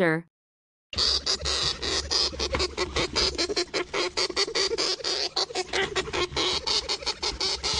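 Dwarf hamster chewing a fresh leaf: rapid, irregular crunchy nibbling clicks, starting about a second in and running on without a break.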